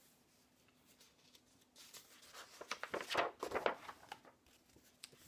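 Paper rustling and brushing as a page of a picture book is turned and the book is handled, loudest about three seconds in.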